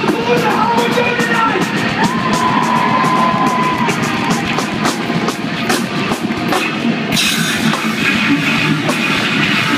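Live rock band playing loudly: electric guitars, bass and drum kit driving on together, with a long held note a couple of seconds in. The sound turns brighter and harsher about seven seconds in.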